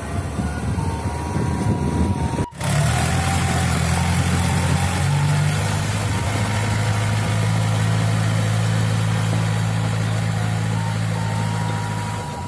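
Farm tractor's diesel engine running steadily as it drives through a flooded rice paddy. The sound breaks off briefly about two and a half seconds in, and after that the engine is louder and steady.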